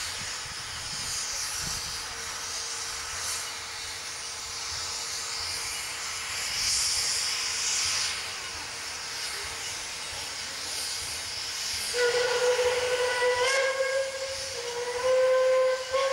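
Narrow-gauge steam locomotive blowing off steam with a steady hiss that swells briefly midway, then its steam whistle sounds twice, a longer blast with a small step up in pitch and a shorter one near the end, as the train readies to depart. The whistle is the loudest thing.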